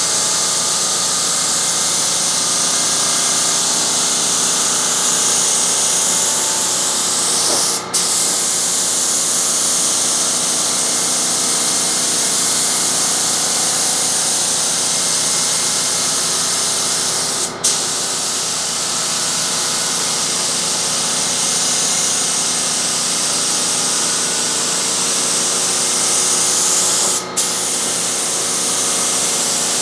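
Primer being sprayed onto car door panels: a steady spraying hiss that cuts out briefly three times, about ten seconds apart.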